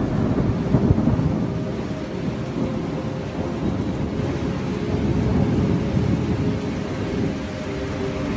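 Rain with rolling thunder, a steady low rumble.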